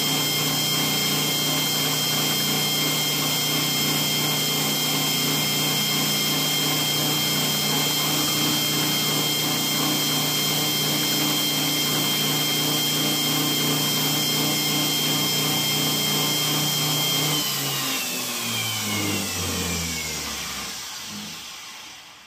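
Electric belt grinder running steadily while a steel knife blade is held to the belt to sharpen its edge. About seventeen seconds in the motor is switched off and the grinder winds down, its hum and whine falling in pitch until it stops near the end.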